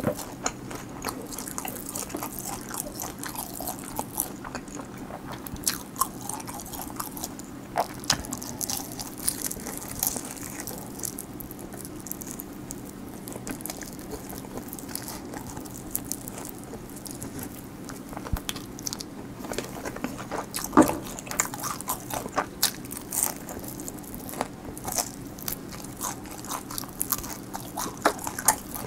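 Close-miked chewing and crunching of crispy fried chicken (BBQ honey butter garlic chicken), a steady stream of small crisp crackles with one louder crunch about two thirds of the way through.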